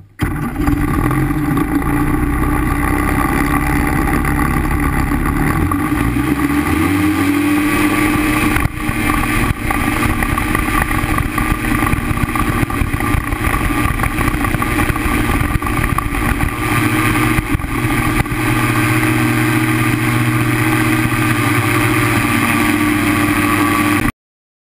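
Paramotor engine and propeller running loud. About six seconds in it is throttled up, its pitch rising and then holding at high power while the wing inflates for launch. It cuts off suddenly near the end.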